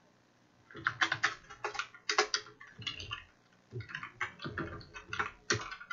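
Typing on a computer keyboard: irregular runs of quick keystrokes, starting just under a second in.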